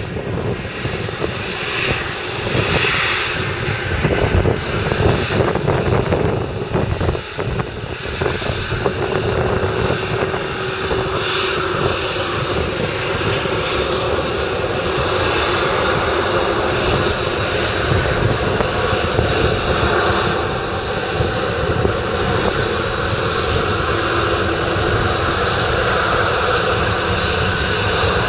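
Boeing 737-800's CFM56-7B jet engines running at low taxi thrust as the airliner taxis past. A steady rumbling hiss that grows slightly louder as it draws close.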